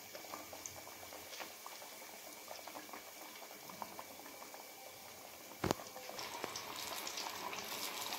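Battered breadfruit slices deep-frying in hot oil, a steady crackling sizzle. There is a sharp knock about five and a half seconds in, and the sizzle grows louder and busier near the end as more battered slices go into the oil.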